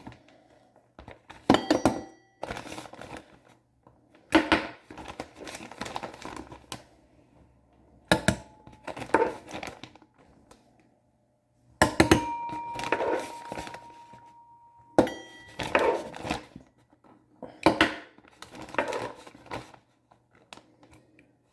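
Plastic bag crinkling and small dishes clattering and being set down as bird food is prepared, in a string of separate handling noises, a few of the knocks leaving a brief ringing tone.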